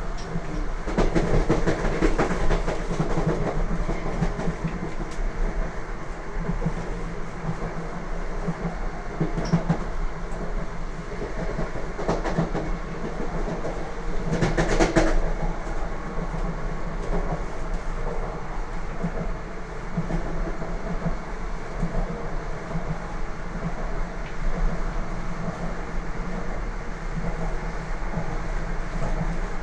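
Wheels of a Lastochka (Siemens Desiro RUS) electric train running along the track, heard from inside the train: a steady rumble with scattered clacks over rail joints, the loudest about halfway through.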